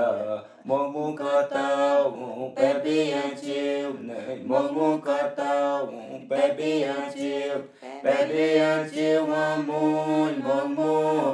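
Unaccompanied voices chanting, sung in several long held phrases with brief breaks between them.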